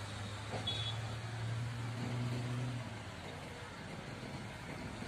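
Low, steady engine hum that fades out about three seconds in, over outdoor background noise, with a brief high chirp about a second in.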